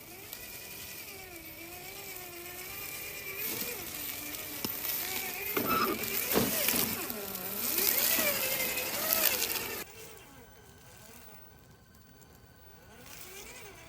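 A Traxxas TRX-4 G500 RC crawler's electric motor and gearbox whining, the pitch rising and falling with the throttle, over a noisy scrape of tyres on the ground. It gets louder through the middle and cuts off suddenly about ten seconds in, leaving a quieter whine near the end.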